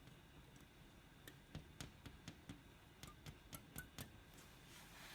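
Small hammer lightly tapping an insect pin into a wall: about a dozen quick, light taps, roughly three or four a second, stopping about four seconds in.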